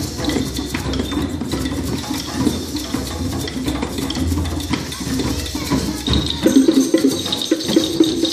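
A large group playing small hand percussion together, shakers and hand drums, in a dense, continuous rustling and clattering texture. It grows louder about six and a half seconds in.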